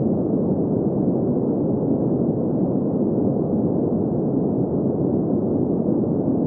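Steady, unbroken green noise, a synthetic sleep-aid noise with its energy in the low mids and nothing bright above it, holding an even level throughout.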